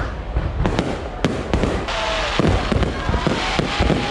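Fireworks display: a rapid, irregular series of bangs, with a dense crackling hiss setting in about halfway through.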